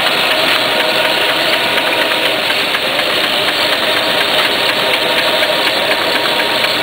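Lasermax Roll Systems Stack 2030 cut-sheet line running: a steady, dense mechanical noise with fast fine ticking as printed sheets travel along the belt conveyor and drop onto the stack.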